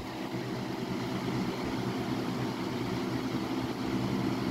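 Lasko Weathershield Select box fan running steadily on high: a steady rush of air over a low motor hum, the motor still warming up from a cold start.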